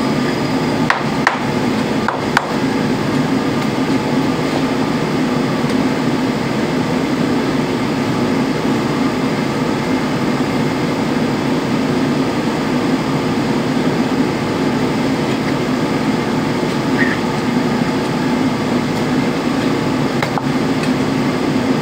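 Kitchen knife slicing pork belly on a thick cutting board, with a few sharp knocks of the blade against the board in the first couple of seconds and one more near the end. A loud steady hum runs underneath throughout.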